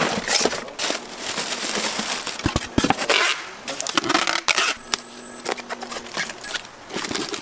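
A styrofoam box being closed and sealed with brown packing tape: foam rubbing and creaking, and tape pulled off the roll in rasping bursts, with a short squeal about five seconds in.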